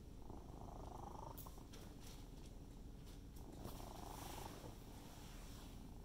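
Domestic cat purring softly and steadily close by, with a few faint clicks and rustles.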